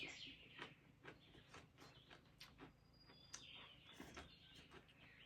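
Faint bird chirps, one falling call at the start and a short high note about three seconds in, over a quiet background with scattered small clicks.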